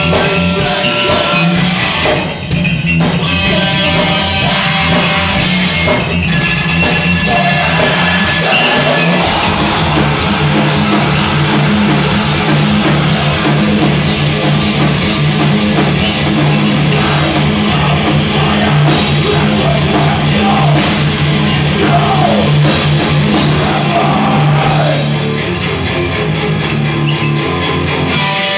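Loud live rock band playing: electric bass, electric guitar and drum kit, with a harmonica's held notes over the band in the first several seconds.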